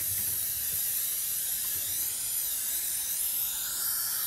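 Steady loud hiss of dental suction and air-water spray working in the patient's mouth. A dental drill's high whine starts to join in near the end.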